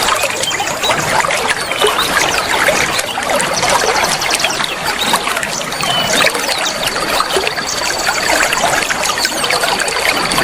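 Flowing water trickling and gurgling steadily. A thin, high trill sounds briefly a few seconds in, and a steady high whine comes in over the second half.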